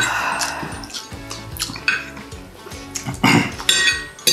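Forks clinking and scraping on plates while two people eat noodles, over background music.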